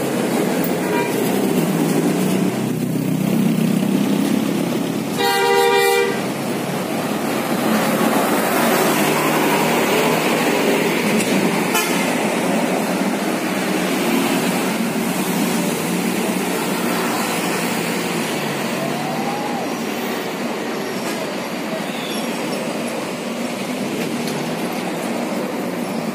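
Heavy highway traffic of trucks and cars: a steady rumble of engines and tyres, with one horn blast of under a second about five seconds in.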